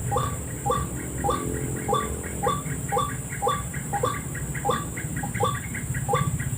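White-breasted waterhen calling, one short call about every 0.6 s in a steady monotonous series. A fainter, quicker run of short notes joins in the middle, over a steady high hiss.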